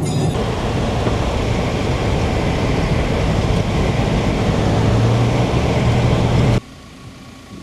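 Vehicle driving on an unsealed red dirt road, heard from inside the cabin: steady loud tyre and road noise over a low engine drone. It cuts off abruptly near the end, giving way to a much quieter steady background.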